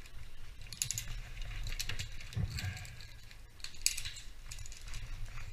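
Metal climbing hardware, such as carabiners and a rope device, clicking and clinking irregularly as it is handled during rigging, with a sharp click about four seconds in. A low steady rumble runs underneath.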